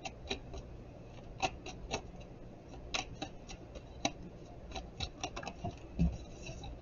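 A deck of tarot cards shuffled and cut by hand: the stiff cards click and snap against each other in light, irregular taps. There is a soft thump about six seconds in as a card is set down on the table.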